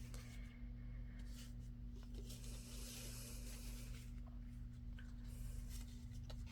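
Faint scratching of a pen on paper as two finished items are marked off a list, over a steady low hum.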